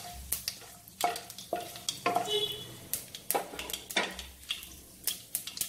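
Mustard seeds and curry leaves frying in hot oil, a steady sizzle with irregular sharp pops as the seeds splutter. A wooden spatula stirs and knocks against the pan.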